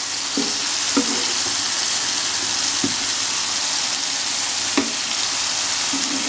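Beef patties and hamburger buns sizzling steadily in hot oil in an electric pizza pan, with a few short knocks of a metal spatula against the pan as the buns are moved.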